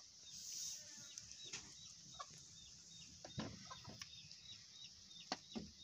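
Chickens clucking faintly, with a few light knocks and a row of soft high ticks repeating a few times a second.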